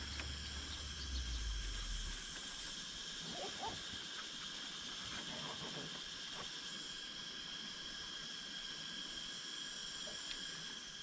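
Steady forest ambience: an even high hiss with several held high-pitched tones running together. A low rumble fades out about two seconds in, and a few faint short calls come around the middle.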